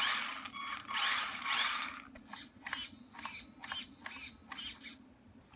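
HBX Rampage 1/18 RC crawler's brushed 380 motor and drivetrain whirring on throttle: two longer bursts, then a quick run of short blips, about two a second.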